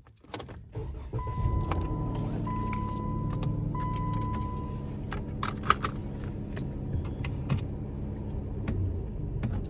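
Car cabin with the engine running low and steady. A warning chime sounds three times, about a second each, over handling clicks and a jingle of keys.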